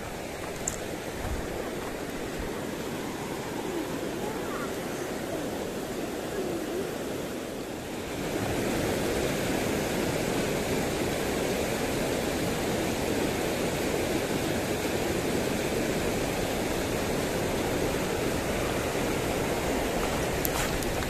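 Shallow river rushing over stones and rapids: a steady watery rush that gets louder about eight seconds in.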